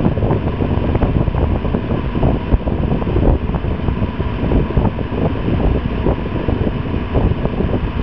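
Steady rushing noise with an uneven low rumble and no distinct events.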